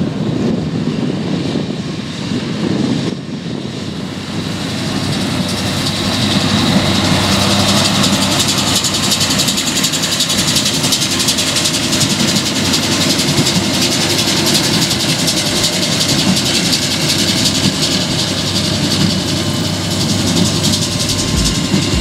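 New Holland T7.210 tractor's six-cylinder diesel engine running steadily while pulling a Massey Ferguson 186 small square baler, the baler's mechanism clattering as it bales straw. The sound grows louder about five seconds in as the rig comes close, with a few low thumps near the end.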